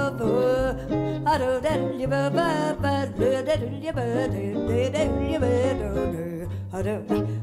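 Live jazz: a woman singing over acoustic guitar and double bass.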